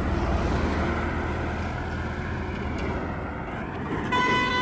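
Road traffic running by, with a vehicle horn sounding one short toot near the end.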